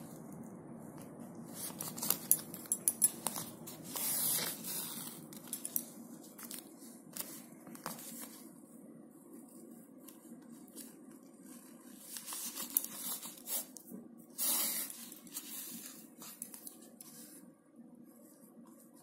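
Needle and thick yarn pushed and drawn through a woven plastic sack, giving short rasping, crinkling swishes in several clusters as the yarn is pulled through the weave. A faint steady hum lies underneath.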